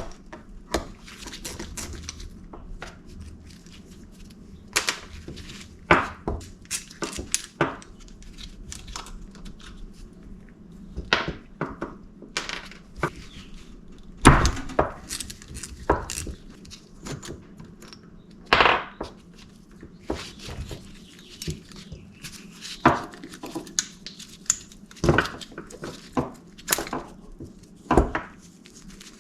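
Scattered clicks, clinks and knocks of small metal parts and hand tools being handled while a dirt bike's rear brake caliper is worked on.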